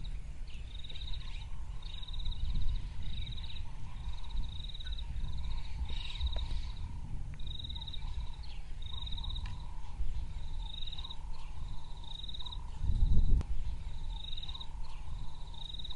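Insects chirping in short pulsed trills about once a second over a steady low rumble that swells briefly near the end.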